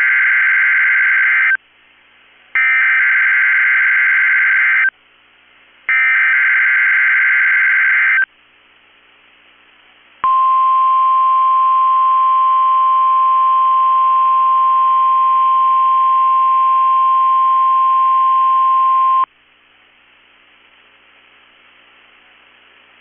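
NOAA Weather Radio Emergency Alert System test signal: three bursts of SAME header data tones, each about two seconds long with about a second of faint radio hiss between, then the steady 1050 Hz warning alarm tone held for about nine seconds. This is the alarm sequence of a Required Weekly Test that switches on weather alert receivers.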